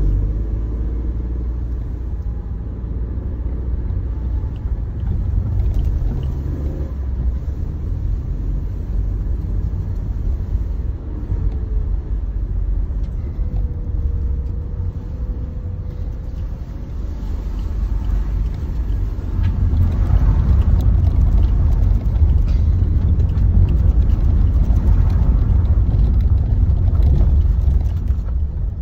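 Car driving slowly along a narrow road, heard from inside the cabin: a steady low rumble of engine and tyres that grows louder about two-thirds of the way through.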